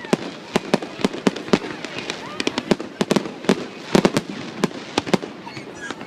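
Aerial fireworks bursting in quick, irregular succession: sharp bangs and cracks, about two or three a second, with a few faint short whistles between them.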